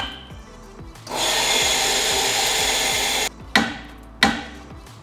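Electric coffee grinder grinding a single dose of about 15 g of beans, a steady grinding noise lasting about two seconds that cuts off suddenly. Two sharp knocks follow.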